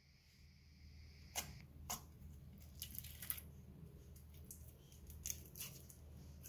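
Slime being squished in the hands, giving irregular sharp little clicks and pops, the first about a second and a half in and more scattered through the rest.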